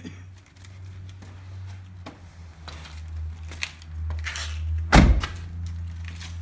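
A door thuds shut about five seconds in, after a few softer rustles and knocks, over a steady low hum.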